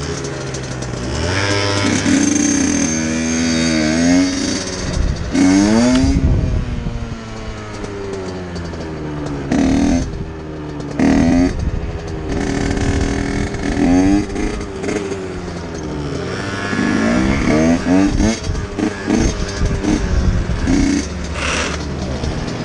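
Small two-stroke motorcycle and scooter engines idling, with the scooter revved hard again and again in quick rising whines as it is popped up into wheelies.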